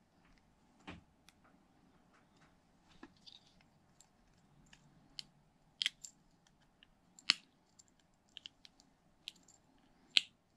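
Small metallic clicks and ticks of needle-nose pliers prying open a tiny steel split ring and working it onto a fishing swivel, scattered irregularly, with a few sharper clicks, the loudest near the end.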